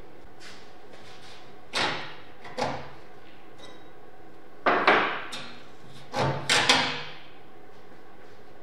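Sharp metal knocks and clanks with short ringing tails as a rusty round steel oven plate is handled against a bench vise and workbench. Two single knocks come first, then two louder clusters of clanks.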